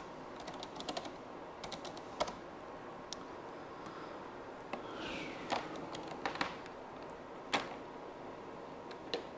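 Typing on a computer keyboard, a couple of quick runs of keystrokes in the first two seconds or so. Then scattered single clicks and a short rustle of hands handling a cable at the desk, the sharpest click about three quarters of the way through.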